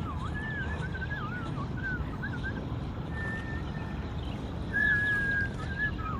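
A warbling whistle: a string of short notes sliding up and down, with one longer held note about five seconds in, over a steady low background rumble.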